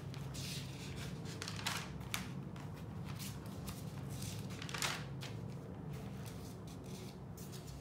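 Scattered soft rustling and handling noises, several in a row with the loudest about two and five seconds in, over a steady low hum.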